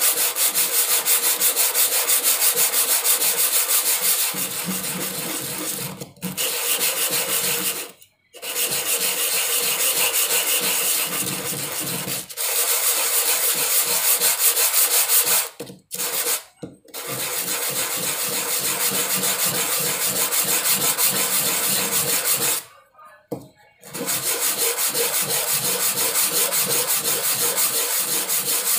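A small block of sono kembang (angsana) wood rubbed by hand back and forth on a sheet of sandpaper: a dry scratchy sanding sound in rapid strokes. It stops briefly several times as the hand pauses.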